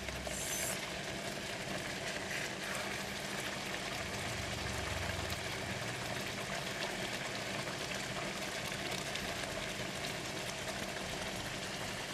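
Patin fish fillets simmering in ginger-scallion sauce in a wok: a steady sizzling, bubbling hiss.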